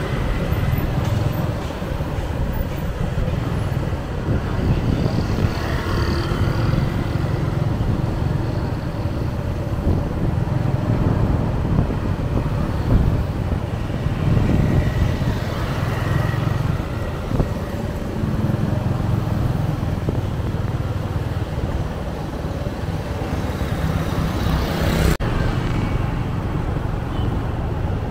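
Steady city road traffic: engines and tyres of passing motorbikes and cars, with a constant low rumble.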